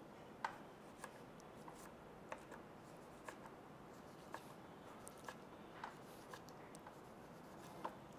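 Kitchen knife slicing a tomato on a plastic cutting board: faint, irregular taps of the blade reaching the board, roughly two a second.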